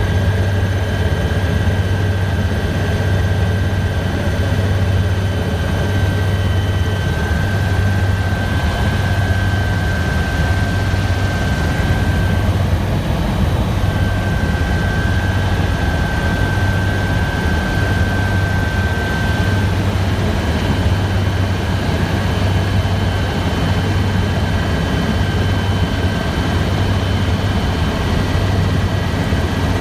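Helicopter in flight: a loud, steady low pulsing throb from the rotor with a steady high whine held over it.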